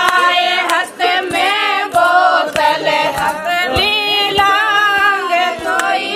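A group of women singing a traditional wedding folk song together, with sharp hand claps every second or so.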